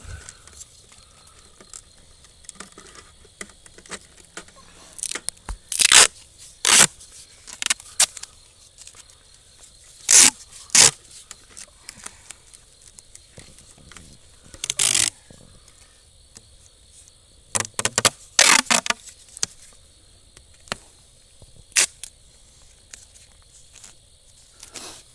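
Irregular bursts of scraping and rustling from close handling, about a dozen of them, several loud ones lasting around a second each, over a faint steady high hiss.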